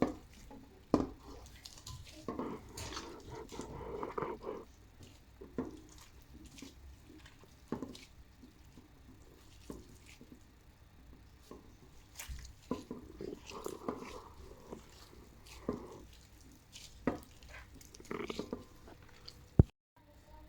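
Kitchen handling sounds while preparing food: scattered light knocks and clicks of utensils against dishes, with soft rubbing and stirring noises between. There is a sharp click near the end.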